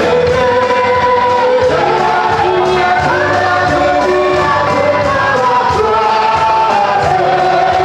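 A worship team of several singers with microphones singing a gospel worship song together in long held notes, with instrumental backing.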